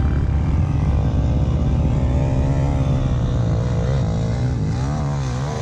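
Quad bike (ATV) engine running under throttle while riding, its pitch wavering up and down and swinging most near the end.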